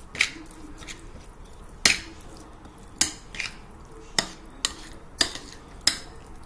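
Metal spoon clinking against a plate while stirring a chunky chicken-and-mayonnaise mixture: about eight sharp clinks at irregular intervals.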